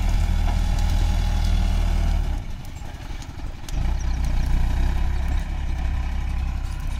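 Mahindra Arjun tractor's diesel engine running steadily, going quieter for about a second early in the middle and then picking up again.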